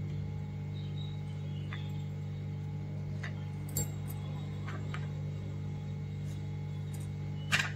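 Kitchen knife cutting soft white bread into squares on a plastic chopping board: a few scattered taps of the blade on the board, the loudest near the end. A steady low hum runs underneath.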